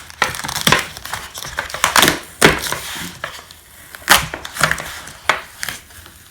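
Packaging crackling and knocking as a boxed kitchen knife set is unpacked by hand: a run of irregular sharp crackles and taps.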